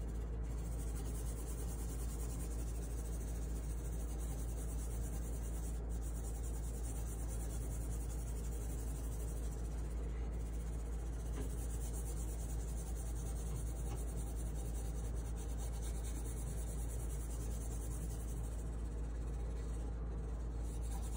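Wax crayon rubbing back and forth across a sheet of paper on a tabletop, a steady run of coloring strokes.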